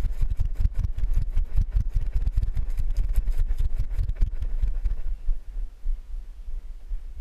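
Running footfalls jolting a body-mounted camera, heard as fast, rhythmic low thumps with rustling over a steady low rumble. The thumps ease off about five seconds in, when the run stops.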